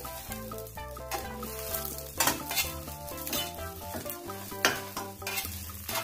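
Sardine-and-egg omelette sizzling in a nonstick frying pan as a spatula scrapes under it and folds it over, with several sharp scrapes of the spatula on the pan. Background music with a steady bass line plays underneath.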